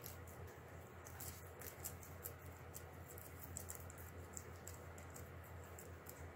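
Guinea pigs chewing raw vegetables: a rapid, irregular run of small crisp crunches over a low steady hum.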